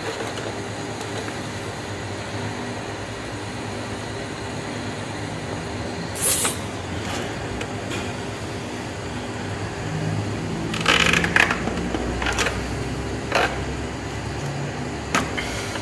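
Nylon cable ties being pulled tight around a refrigeration compressor's run capacitor and control box. There are a few short rasping zips, one about six seconds in and a cluster from about eleven seconds on, over a steady background hum.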